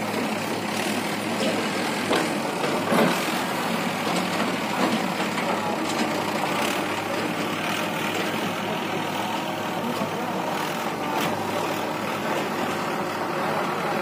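Diesel engines running steadily: a Mahindra Arjun 555 DI tractor's four-cylinder diesel idling close by while a JCB 3DX backhoe loader works beside it. A few short knocks, the loudest about two and three seconds in.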